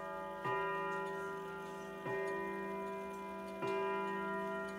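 German wall clock of about 1910 striking the hour on its gong: three strokes about a second and a half apart, each the same deep, many-toned note, left ringing into the next.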